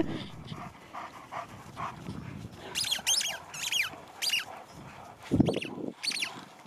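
Dogs at play in a field: a run of short, high, falling squeaks about three to four seconds in, and a low thud a little after five seconds.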